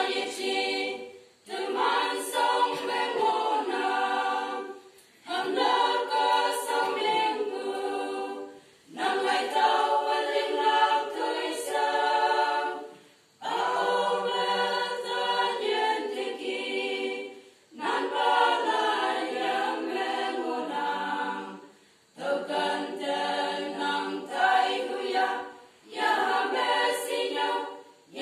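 Women's choir singing unaccompanied, in phrases a few seconds long separated by short breaks.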